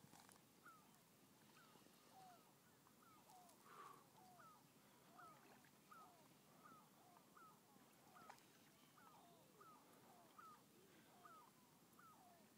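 Faint, steady chorus of distant birds: many short calls sliding down in pitch, at a higher and a lower pitch, following one another about twice a second.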